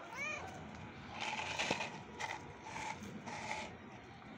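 A ginger cat gives one short meow that rises and falls in pitch, followed by four short scratchy noises.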